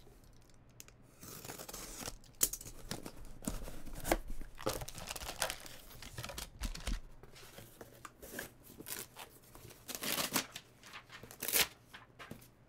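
A cardboard card box being opened and handled and a gold foil-wrapped card pack taken out, with irregular crinkling of foil and scraping and tapping of cardboard.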